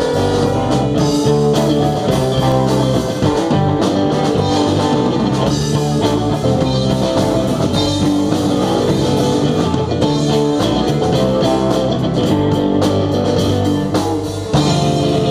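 Live rock band playing, electric guitar over a drum kit. The sound dips and changes abruptly near the end.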